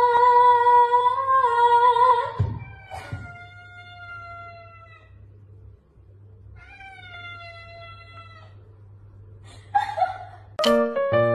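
A tabby cat giving long, drawn-out meows, two of them sagging slightly in pitch, then a short call near the end, in a back-and-forth with a woman's held sung note at the start. Music comes in just before the end.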